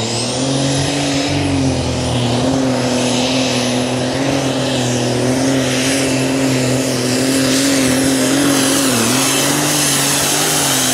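Super Stock pulling tractor, a Ford/New Holland, running its turbocharged engine at full throttle down the track. A high turbo whistle climbs in the first second and then holds steady over the engine's loud, even note.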